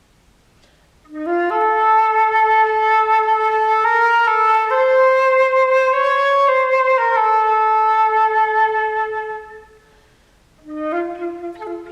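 Solo flute playing one long sustained phrase of slow held notes that step up and then back down, after a brief pause; near the end a new phrase begins with a note scooped up from below.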